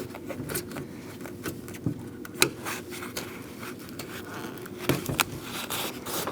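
Weather seal being peeled off the inside of a car door: a run of small crackles and scrapes as it pulls away from its adhesive, with a few sharper clicks, the loudest about two and a half seconds in and two more near five seconds.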